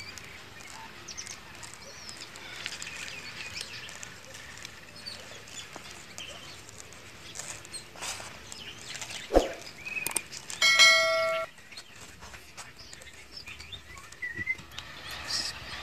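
Quiet outdoor background with faint bird chirps. About nine seconds in there is a single sharp tap, and soon after a bright ringing ding that lasts under a second.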